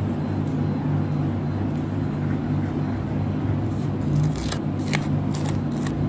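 A steady low hum throughout. From about four seconds in comes a quick run of short, crisp crackles and scratches as a sticker is peeled off its glossy sticker sheet.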